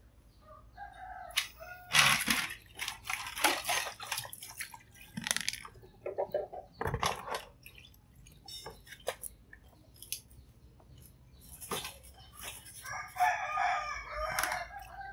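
Knocks and clatter of kitchenware and water being handled, loudest about two seconds in. Near the end a rooster crows once.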